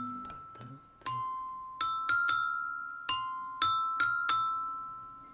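Background music: a slow melody of about eight struck, bell-like notes, each ringing out and decaying, with a faint low accompaniment that dies away within the first second.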